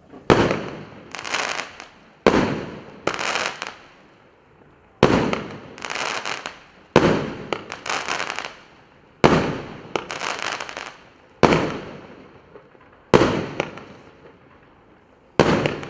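A 25-shot, 1-inch (25 mm) consumer fireworks cake (Russkaya Pirotekhnika RC718 'Dymkovskaya Igrushka') fires eight shots about two seconds apart. Each sharp launch is followed about a second later by the shell bursting into a spell of crackling sparks.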